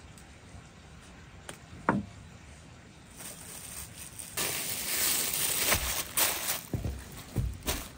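Thin plastic bag crinkling and rustling as hands wrap a ball of dough in it, starting about halfway through with irregular crackles. One sharp knock about two seconds in.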